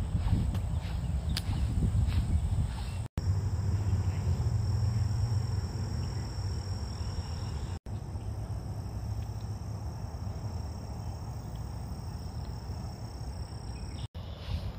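Outdoor park ambience: a steady low rumble with a thin, steady high tone in parts, and a few light clicks in the first few seconds. The sound cuts out briefly at edits, about three seconds in, about eight seconds in and near the end.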